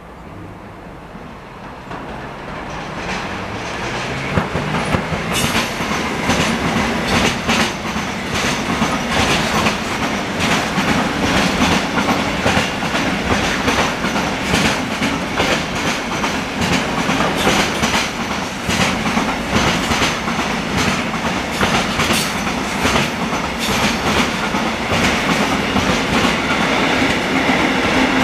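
Intermodal freight train passing close by, its wagons loaded with lorry trailers, wheels clacking in a steady rhythm over the rail joints under a continuous rumble. It grows louder over the first few seconds as the train arrives, then holds steady.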